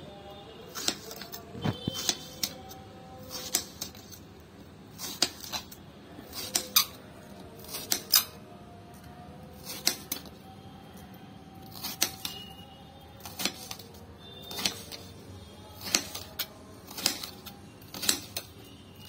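Kitchen knife slicing a peeled raw plantain into rounds on a black stone countertop: a sharp click each time the blade goes through and strikes the stone, about once a second, sometimes two in quick succession.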